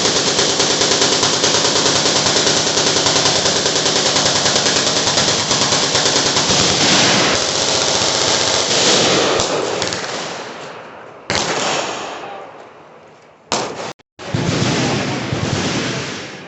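Machine guns firing full-auto at once: a dense, continuous rattle of shots that fades after about ten seconds. Shorter bursts follow, then heavy firing starts again after a sudden break near the end.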